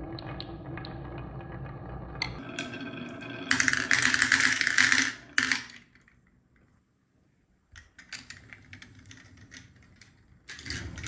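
Glass marbles rolling and clacking down a wavy wooden HABA slope. About three and a half seconds in, a loud clatter of marbles tumbling into a toy pickup truck's bed and knocking together. After a brief lull, light scattered clicks and rattles.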